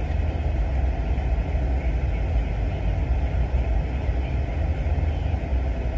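Steady low rumble inside a car's cabin, from the car idling, with no sharp sounds.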